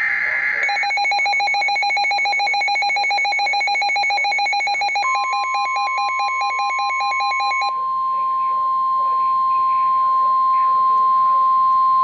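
NOAA weather radio's alert alarm beeping in a rapid pulsing pattern for about seven seconds. About five seconds in, the steady 1050 Hz Weather Alert Tone that announces a new warning broadcast starts and keeps sounding alone after the beeping stops.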